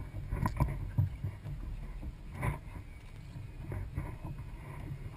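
Kayak on open water: a steady low rumble of water and wind with a few light knocks and clunks, about half a second, one second and two and a half seconds in.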